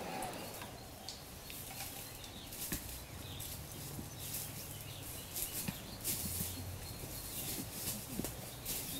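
Footsteps crunching and rustling through dry leaves and undergrowth, in irregular crackles, over a faint low hum.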